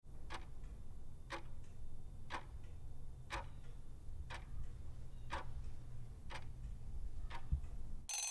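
Quiz countdown timer: a clock-style tick-tock, about two ticks a second alternating louder and softer, over a low hum. A bright ringing alarm starts just before the end as time runs out.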